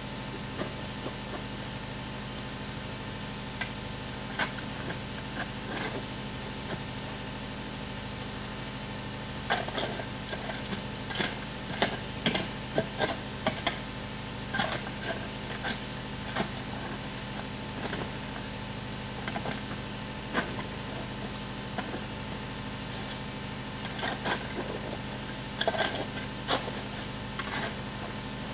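A metal shovel scraping and striking sand and gravel in irregular strokes, busiest from about ten to fourteen seconds in and again around twenty-five seconds, over a steady mechanical hum.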